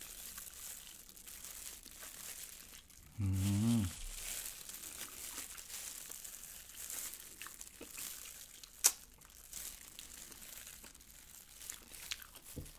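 Close-miked eating: a person chewing glazed yangnyeom fried chicken with rice, with the crinkle of a plastic disposable glove handling the piece. There is a short hummed "mm" about three seconds in, and a single sharp click just before nine seconds, the loudest sound.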